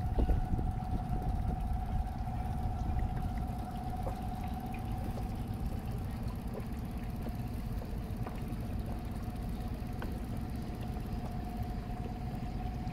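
Small outboard motor on an inflatable dinghy running steadily under way, a low engine rumble with a steady whine above it.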